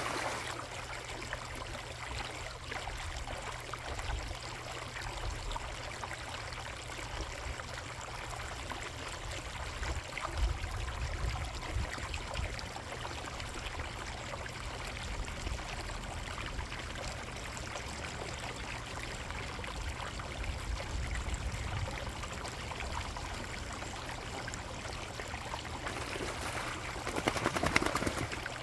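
Water trickling steadily at a koi pond, with a low rumble underneath and a brief louder burst near the end.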